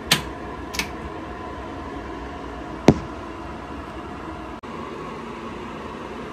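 Steady hiss with three sharp clicks, the loudest about three seconds in.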